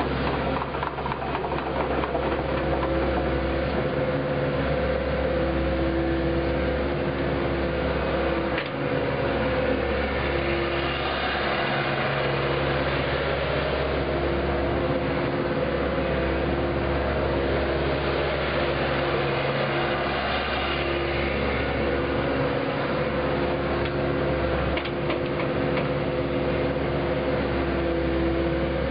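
Kobelco SK75UR-3ES excavator's diesel engine running steadily while its boom and arm are worked, with a hum whose pitch shifts and drops in and out as the machine moves.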